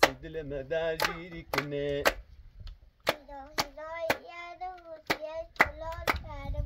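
Hands clapping in a rhythm, about two claps a second, with voices singing along; the clapping and singing pause briefly about two seconds in.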